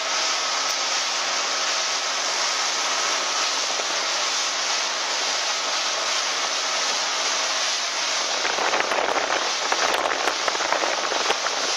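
Small motorboat under way at speed: a steady rush of wind and spray over the hull with a steady engine hum beneath it. About two-thirds of the way through it turns rougher, with low thumps and buffeting.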